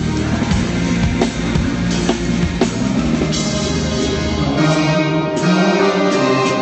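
Live rock band playing: drum kit with kick and snare keeping a steady beat under bass and guitar, with held chords coming in about halfway through. The sound is thin at the top, as heard through a phone livestream.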